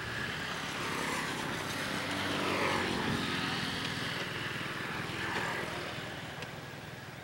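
Distant engine drone of passing traffic, swelling and then fading away.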